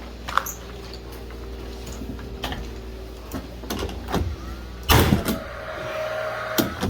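Nail gun shooting a nail into ceiling timber: a loud sharp bang about five seconds in, followed by a brief motor whir, with further knocks near the end, over a steady low hum.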